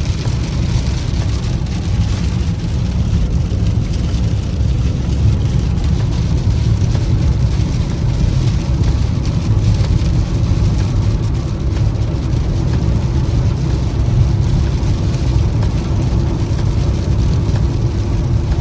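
Heavy rain falling on a moving car, with a steady low road and engine rumble under the hiss of the rain.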